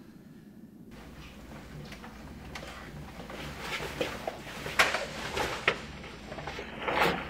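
Low steady hum with several short, sharp sci-fi blaster shots as sound effects, the loudest a little under five and seven seconds in.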